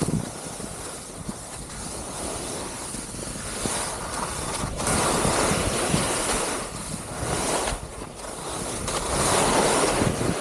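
Touring skis hissing and scraping over snow on a descent, mixed with wind rushing over the microphone. The noise swells in surges with the turns, loudest about halfway through and again near the end.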